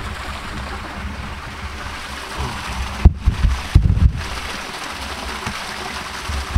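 Creek water running over rocks, with wind rumbling on the microphone and a few sharp low thumps about three to four seconds in.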